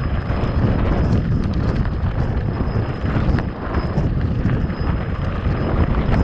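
Heavy wind buffeting the microphone during a mountain-bike ride over desert ground, a dense low rumble with scattered clicks and rattles.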